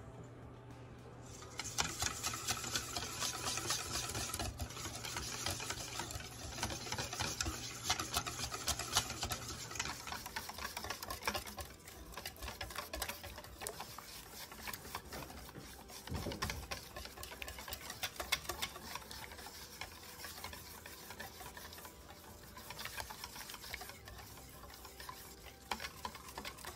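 Wire whisk beating thin pandan crepe batter in a bowl: a fast, steady scraping and clicking of the wires against the bowl, starting about a second and a half in.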